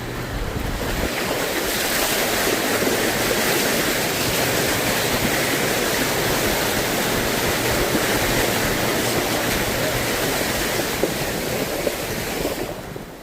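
Muddy puddle water splashing and spraying against a Jeep Gladiator as it drives through, a steady rush that builds over the first couple of seconds and stops sharply near the end. A low engine hum runs beneath.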